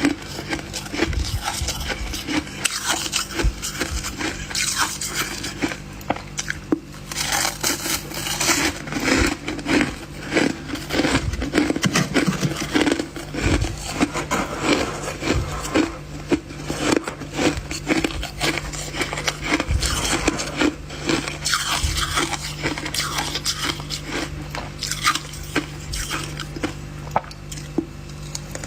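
Close-up crunching bites and chewing of fluffy freezer frost ice, a steady run of irregular crunches, with a steady low hum underneath.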